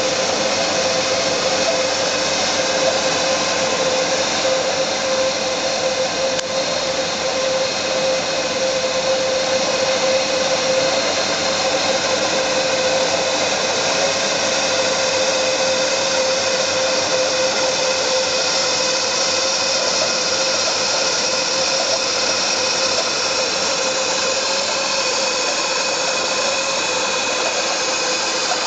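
Turret milling machine with a variable-speed head, its spindle motor and drive running: a steady mechanical whine with one strong held mid-pitched tone that holds without change.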